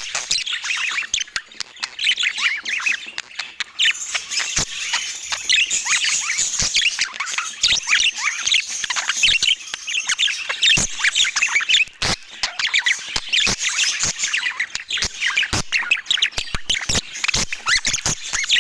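A flock of budgerigars chattering continuously, with dense, overlapping chirps and squawks and frequent sharp clicks.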